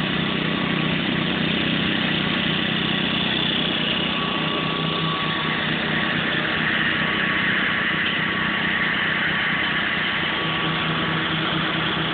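1966 Gravely walk-behind tractor's engine running steadily with its front rotary mower attached.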